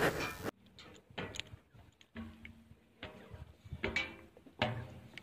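Footsteps climbing steel checker-plate stairs: a few dull knocks on the metal treads, about a second apart.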